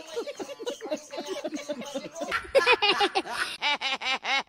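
Laughter: a quick run of short 'ha-ha' syllables, growing louder about halfway through.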